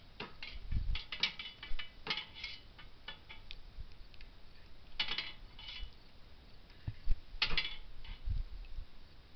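Irregular clusters of sharp mechanical clicks and rattles, with a few low thumps between them.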